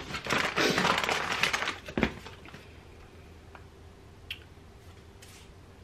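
Paper crinkling and rustling as gift wrapping is handled, for about a second and a half, then a single knock about two seconds in. After that only a faint steady hum and one light tick.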